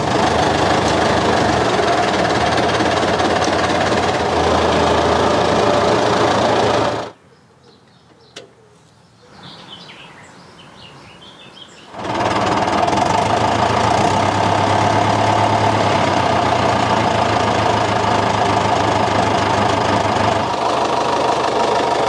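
David Brown 990 Selectamatic's four-cylinder diesel engine running steadily just after starting. It drops out for about five seconds near the middle, then runs on steadily again.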